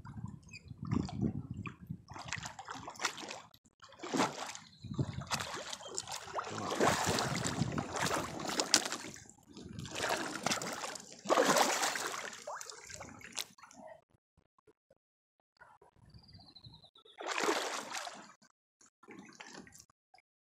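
Hooked flathead catfish thrashing at the water's surface as it is played in, in irregular bursts of splashing with a short lull near the end.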